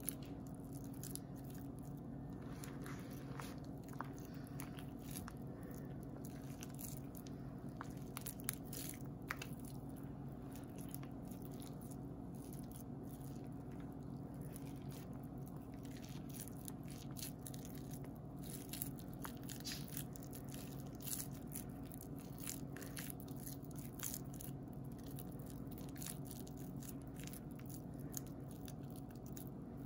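Damp grated soap shavings crunching and crackling as hands squeeze and pack them tightly together into a soap ball, small irregular crackles throughout over a steady low hum.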